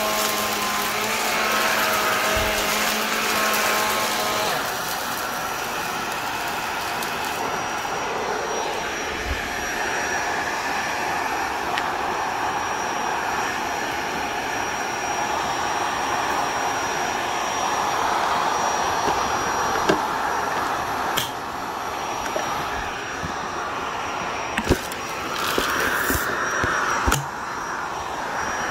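Vacuum cleaner running steadily, its motor and airflow noise shifting as it is pushed back and forth over the floor, with a thin high whine. Several sharp clicks or knocks in the last third.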